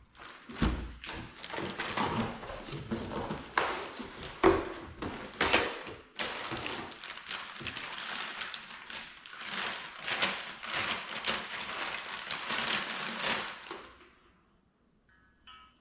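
Unboxing a box of metal mounting brackets: cardboard and plastic packaging rustling and scraping, with a heavy thud about half a second in and repeated knocks as the parts are handled. The handling stops about a second before the end.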